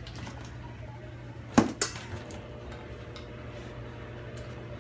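Yellow plastic strapping band on a cardboard box snapping as it is cut, a sharp snap about a second and a half in followed quickly by a smaller one.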